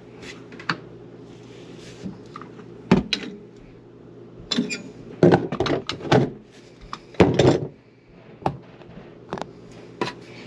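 Channel-lock pliers gripping and turning a 1.5-inch PVC male adapter on a kitchen sink drain to unscrew it: a string of scattered clicks and knocks, some short and sharp, a few longer scraping ones, with gaps between them.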